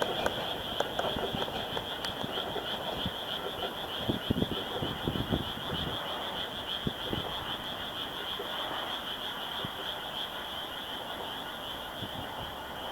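Steady high trilling chorus of frogs calling at night, with a few low thumps about four to five seconds in.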